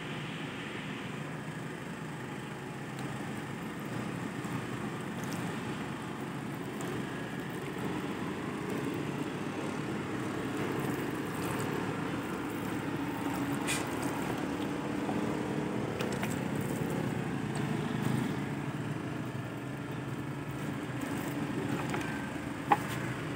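Steady low rumble of distant road traffic, with one sharp click near the end.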